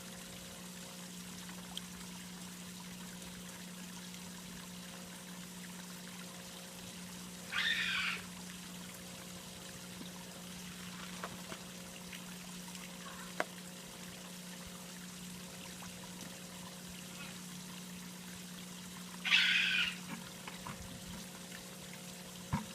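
Water trickling steadily at a pond, over a constant low hum, with two short louder rushing sounds about eight and nineteen seconds in.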